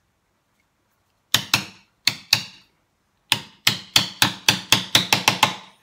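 Mallet striking a bench chisel, chopping waste out of half-blind dovetail sockets. There are two pairs of sharp knocks, then a run of about ten strikes that speed up toward the end.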